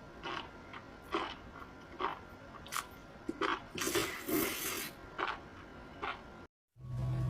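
Close-miked biting and chewing of crunchy food: short crisp crunches about once a second, with a denser run of crunching around the middle. Near the end the sound drops out for a moment, then a steady low hum begins.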